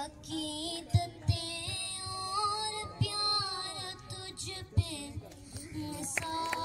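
A girl singing a song into a microphone, amplified through loudspeakers, holding and bending sustained notes. A few short low thumps sound under the singing.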